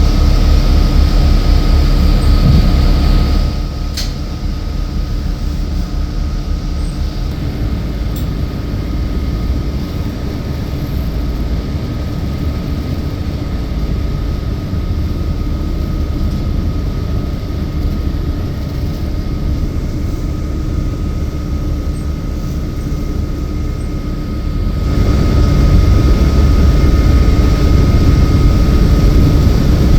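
City bus interior noise: a low engine and road rumble with a steady high hum. It drops quieter a few seconds in and swells louder again near the end.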